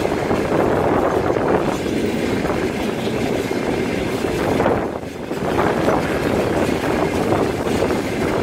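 Rail tank cars of a freight train rolling past close by: a steady rumble and rattle of steel wheels on the rails.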